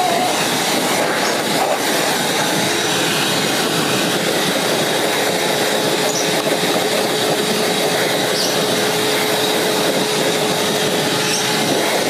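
Wet/dry shop vacuum running steadily, blowing air through its hose: a loud, even rush of air with a steady motor whine.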